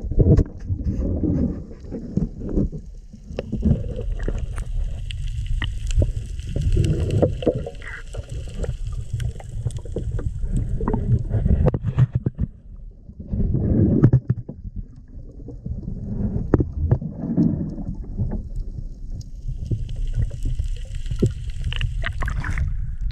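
Muffled underwater rumble and sloshing with irregular knocks and scrapes, as a camera in a waterproof housing is moved about inside a boat's bow thruster tunnel.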